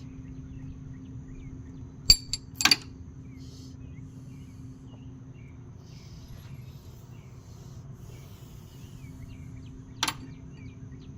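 A few sharp clicks and clanks from a tool chest's drawers and the tools in them being handled: a quick cluster about two seconds in and one more near the end. A steady low hum runs underneath.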